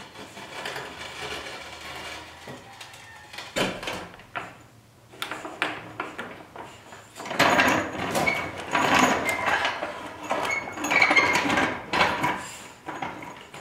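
Hydraulic floor jack being let down under a cast-iron wood cook stove: a steady hiss with scattered clicks. Then knocks, and from about halfway louder scraping, rattling and clunks as the jack is pulled out across the concrete floor.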